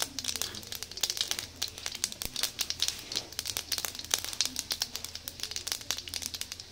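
Mustard seeds and urad dal spluttering in hot oil in an iron kadai: a dense, irregular crackle of small pops. This is the tempering (thalippu) at frying heat, the seeds bursting as they cook.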